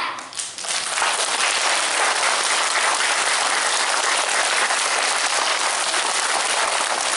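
A sung chord dies away, then an audience claps and applauds steadily from about half a second in, marking the end of a children's choir song.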